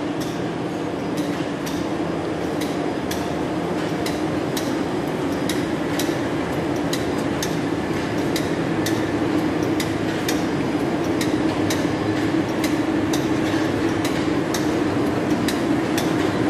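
BOBST PCR930 carton folder-gluer running in production, a steady mechanical hum with sharp regular clicks about twice a second, growing a little louder toward the end.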